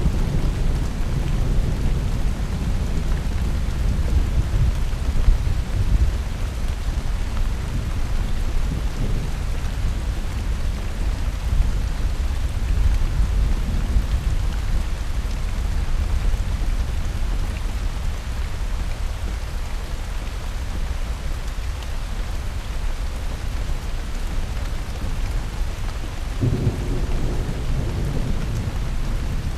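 Thunderstorm: steady rain with rolling thunder rumbling underneath, and a fresh thunderclap rolling in near the end.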